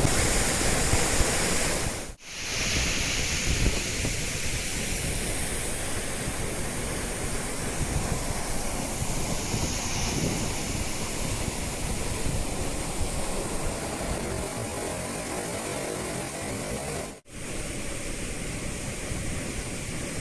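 Steady rushing noise of a powerful waterfall, with wind buffeting the microphone; the sound drops out briefly twice.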